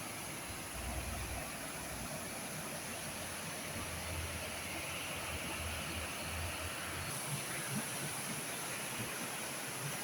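Mountain torrent rushing over small cascades: a steady, even rush of water.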